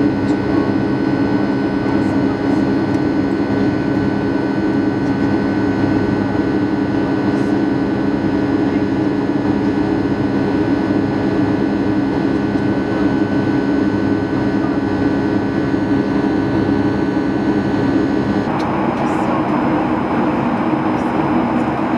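Cabin noise inside a Boeing 757 in flight: a steady rush of jet engines and airflow, with several steady whining tones. About eighteen seconds in it changes abruptly to a smoother hiss without the tones.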